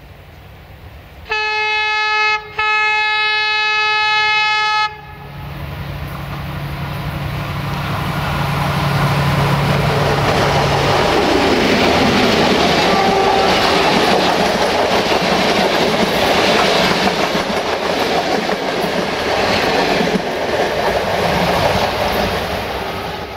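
Romanian LDH diesel-hydraulic locomotive sounding its horn in two blasts, a short one and then a longer one. Its engine then grows louder as it nears, and it passes close by hauling coaches, with wheels clattering over the rail joints.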